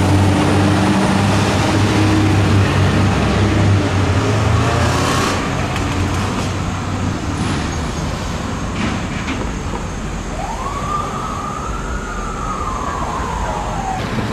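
Fire truck tower ladder's diesel engine pulling away, its steady low drone fading as it moves off. About ten seconds in, a single siren wail rises quickly and falls away slowly.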